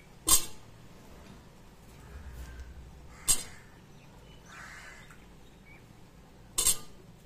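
A crow caws three times, about three seconds apart, each call short and sharp, with soft splashes of vegetable pieces dropping into a pot of gravy in between.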